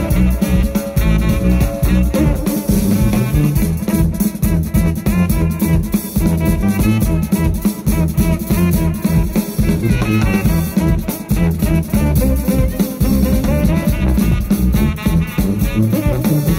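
Live jazz band of saxophone, tuba and two drum kits playing a driving groove: dense, loud drumming and a tuba bass line with saxophone above.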